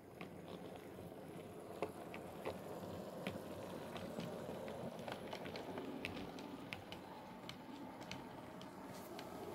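Model steam locomotive, a Trix 'Tristan', pulling a short train along the layout: a steady running whir from the locomotive and wheels, with irregular sharp clicks as the wheels cross rail joints and points.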